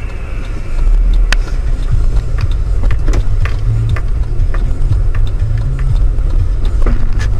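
Low rumble of a moving car heard from inside the cabin, which grows louder about a second in and then holds steady, with scattered light clicks and rattles over it.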